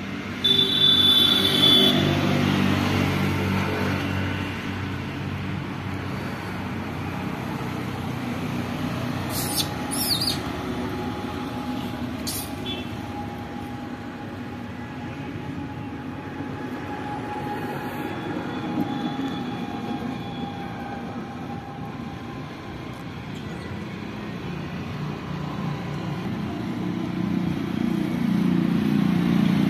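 Steady rumble of passing motor vehicles, loudest just after the start and swelling again near the end. A few sharp clicks come about ten seconds in.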